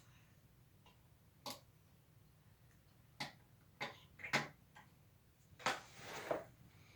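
Plastic Lego Technic pieces clicking as they are handled and fitted together: a handful of separate sharp clicks spread through, with a short rustle near the end.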